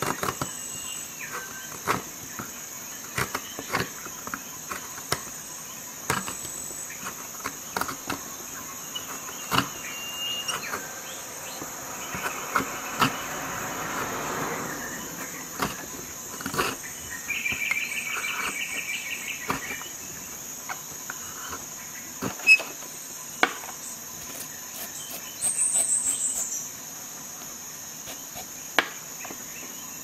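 Hook-knife blade of a Flexcut Carvin'Jack folding carving tool cutting and scraping shavings from a softwood board, heard as scattered sharp clicks and knocks and stretches of scraping, with a quick run of ticks about two-thirds of the way in. A steady high-pitched tone runs underneath.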